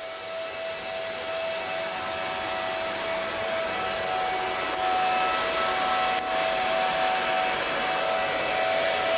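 The two cooling fans of a Xuanniao 12500 Ethash cryptocurrency mining machine running at high speed: a loud rush of air with a steady whine on top, growing gradually louder.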